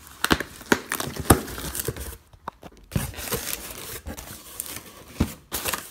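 Cardboard shipping box being opened by hand: its flaps are pulled back and scrape, in a string of short sharp knocks and scrapes, with a brief lull a little over two seconds in.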